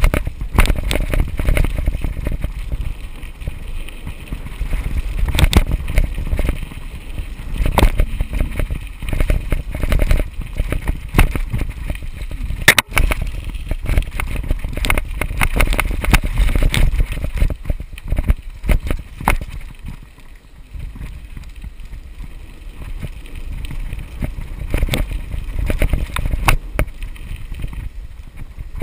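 Mountain bike riding over a rough dirt trail: a continuous rumble of tyres and wind on the microphone, broken by frequent sharp knocks and rattles as the bike jolts over bumps. It eases for a few seconds about two-thirds of the way through.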